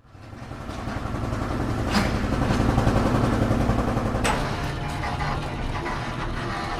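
Low, steady engine-like rumble that fades in at the start, with two sharp clicks about two and four seconds in.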